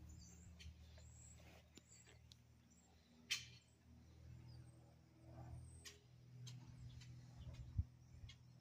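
Quiet outdoor ambience: a faint, steady low drone with a few small bird chirps, and one sharp click about three seconds in.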